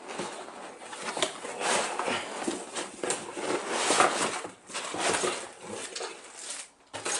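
Packaging being handled during unboxing: irregular rustling, scraping and knocking as the box is opened and the contents are pulled out.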